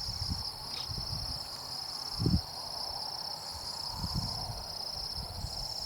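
Night insect chorus of crickets trilling in one steady high band, with a second higher chirping band that comes and goes. Low rumbles and thumps sound underneath, and a sharper thump comes a little over two seconds in.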